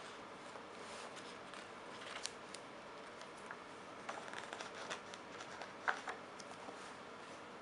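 Pages of a glossy paperback magazine being opened and flipped by hand: faint paper rustles and soft slaps, busiest about four seconds in, with one sharper snap of a page near six seconds.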